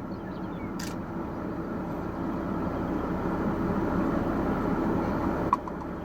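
Steady low hum and rumble of a car, swelling a little midway, with a sharp click about a second in and another near the end.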